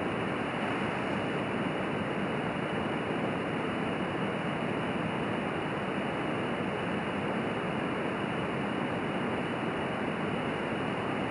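Jetted alcohol stove burning methanol under a stainless steel mug of water, making a steady, even rushing hiss. The flames are strong and the stove is building pressure.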